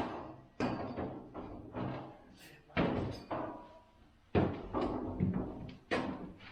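A series of knocks and clunks, about eight, spaced irregularly, from hands-on work on a garage door opener's track and hardware.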